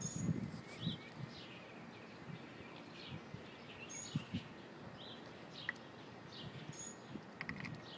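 Songbirds chirping, with short downward-sweeping calls and a thin whistle repeated now and then, over faint outdoor background noise; a few faint knocks sound about four seconds in.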